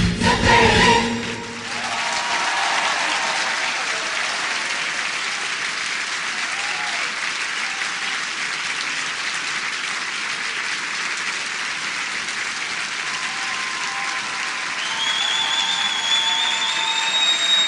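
A song's last notes end about a second in, and an audience applauds. Near the end, a long high whistle rises over the clapping.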